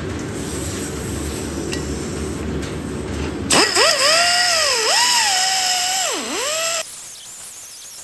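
A small cutoff wheel tool whining at high speed as it cuts into a steel frame rivet, its pitch sagging several times as the wheel is pressed into the cut and recovering between passes, for about three seconds before it stops abruptly. Before it starts, a steady rushing noise.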